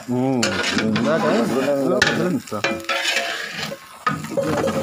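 A long metal ladle stirring and scraping through chicken biryani in a large aluminium pot on the fire, with the rice mixture sizzling.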